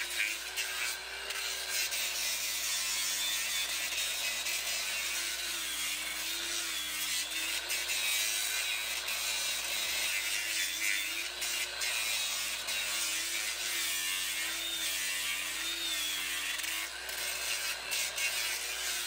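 Cordless angle grinder with an abrasive disc grinding down a horse's hoof. The motor runs steadily under a rasping grind, its pitch wavering up and down as the disc bears on the hoof.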